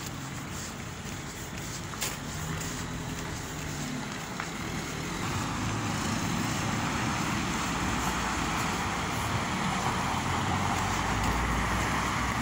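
Street traffic: a car driving on a wet road, its tyre and engine noise a steady hiss that grows louder over the second half.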